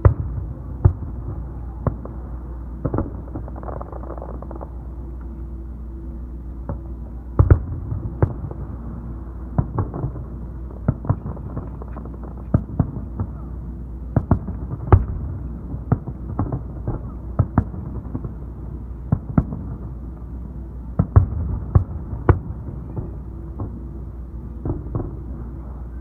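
Aerial fireworks shells bursting in quick, irregular succession: dozens of sharp bangs, some in louder clusters, over a steady low rumble.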